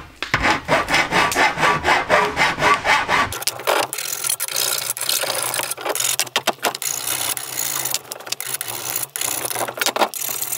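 Hand file rasping along the cut edge of a hammered copper sink, taking down rough, sharp bits. Quick back-and-forth strokes about four a second for the first three seconds, then slower, uneven strokes.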